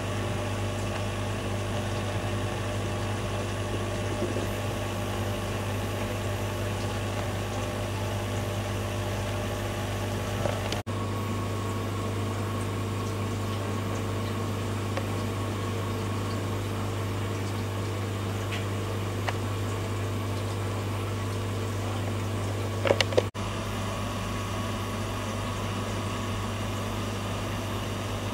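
Steady low hum of aquarium pump equipment, with a few sharp clicks, several in quick succession near the end.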